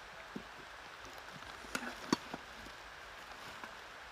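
A few short, light clicks or snaps over a steady outdoor hiss, the sharpest about two seconds in.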